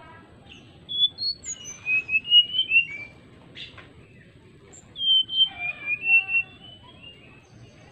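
Male brown-chested jungle flycatcher singing two short phrases of clear, fluty whistled notes, each lasting about two seconds, a couple of seconds apart.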